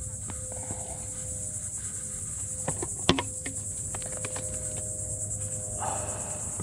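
Steady high-pitched chorus of insects, with a few light clicks and one sharp knock about three seconds in.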